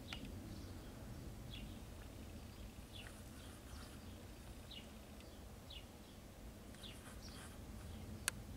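Faint short bird chirps, falling in pitch, about one a second. A single sharp click near the end.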